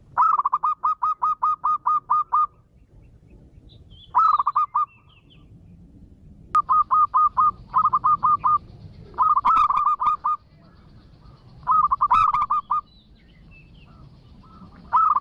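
Zebra dove cooing its song: six phrases of rapid staccato notes, about four a second, with short pauses between; the longest phrase opens the sequence and the last is cut short.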